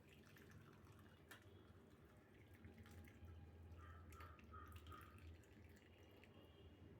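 Near silence: faint room hum with a few soft clicks.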